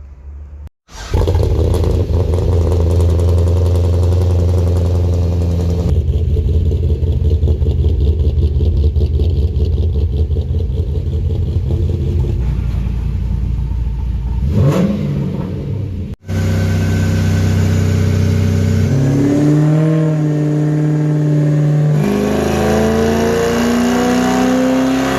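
Holden VX Commodore engine with an aftermarket Kelford camshaft and valve springs idling with a choppy lope, blipped once briefly. After a cut it revs up, rising in pitch twice.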